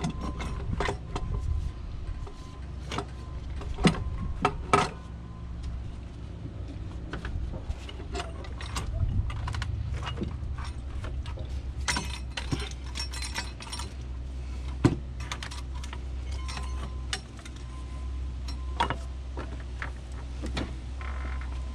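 Scattered metallic clicks, clinks and knocks of tools and loosened parts as a cast-aluminium intake piece is worked free and lifted out of a V8 engine, with a few sharper knocks about four seconds in and again near the middle, over a steady low hum.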